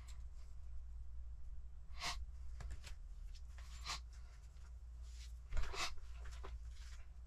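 Small metal and plastic RC kit parts clicking and rattling as they are handled, picked from a metal parts tray and set down, with scattered light clicks and one sharper knock a little past halfway, over a low steady hum.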